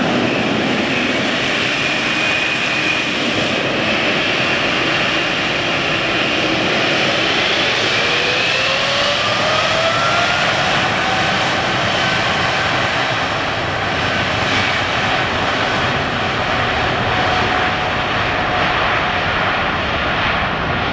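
Boeing 777-300ER's two GE90-115B turbofans at takeoff power on the takeoff roll: a loud, steady jet roar. About a third of the way in, a fan whine rises in pitch and then holds.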